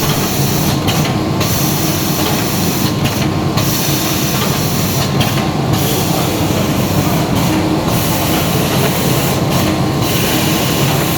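Zhengrun CB540 rigid box-making machine running: a steady mechanical hum and hiss that dips in a regular cycle about every two seconds.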